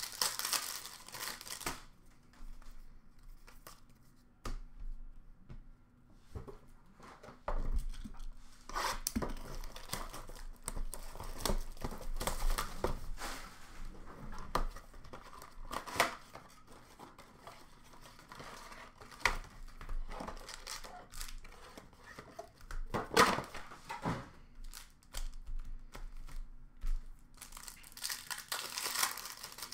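Hockey card packs being torn open: foil wrappers tearing and crinkling in irregular bursts, with cards and boxes handled in between. The loudest tear comes about three quarters of the way through.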